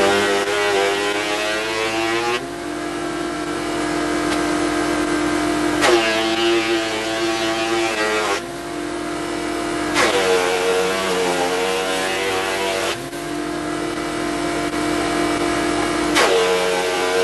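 Thicknessing machine planing a rough-sawn oak beam down to size: four cuts, each starting with a sharp bite and the motor's pitch dropping under load, with a steady running hum between them.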